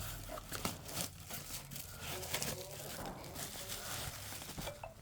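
Packaging being handled: irregular crinkling and rustling with many small clicks and taps.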